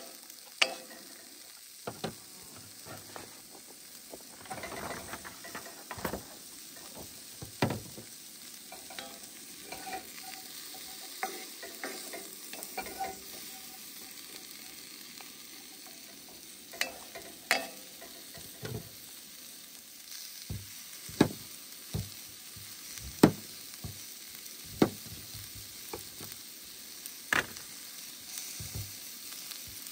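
Diced vegetables sizzling steadily in a cast-iron pan on a camp stove, with a wooden spatula scraping and knocking against the pan as they are stirred. In the later part, sharp taps of a knife cutting through onto a plastic cutting board.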